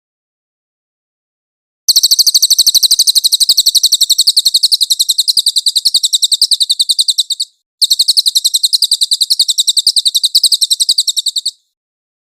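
Cililin songbird singing two long, rapid high-pitched trills of evenly repeated notes, about nine or ten a second, with a short break between them. The song starts about two seconds in and stops abruptly near the end.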